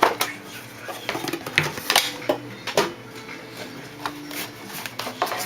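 Hockey card box packaging being handled and opened: irregular clicks, taps and rustles of cardboard, plastic and a metal tin.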